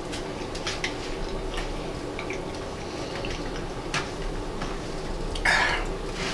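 Forks clicking and scraping against bowls and the wet sounds of pickled food being eaten, in scattered light ticks, with one short, louder breathy rush about five and a half seconds in.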